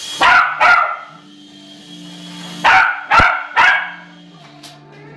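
Small dog barking five times: two sharp barks, then after a pause of about two seconds, three more in quick succession.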